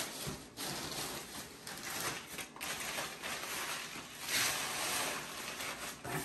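Crumpled packing paper crinkling and rustling as it is handled and stuffed into a cardboard box, with a louder stretch of rustling about four seconds in.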